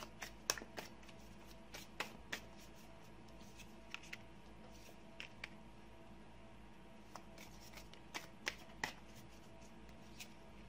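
Tarot cards being shuffled and handled by hand: scattered quiet, crisp card snaps and flicks at irregular intervals, with a few sharper ones about two seconds in and again past eight seconds.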